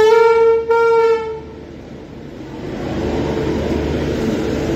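Train horn sounding two short blasts back to back at one steady pitch, then stopping. After a brief lull, the steady rumble of the train running.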